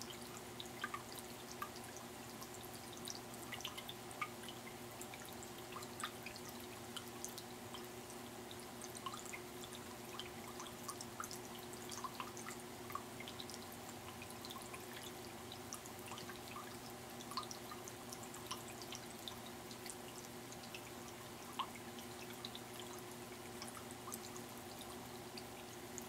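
Tabletop rock fountain: water trickling over craggy rock into a small pool, with many small, irregular drips, over a faint steady hum.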